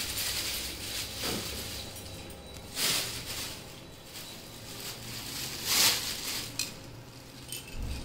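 Thin plastic bag rustling and crinkling as it is handled, with two louder rustles about three and six seconds in.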